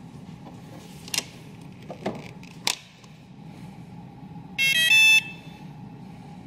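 Power Probe circuit tester beeping: one loud electronic beep of about half a second in two pitches, about four and a half seconds in, as its tip is held on a PCM connector pin to read voltage. Before it, a few sharp clicks of the probe being handled and set against the connector, over a steady low hum.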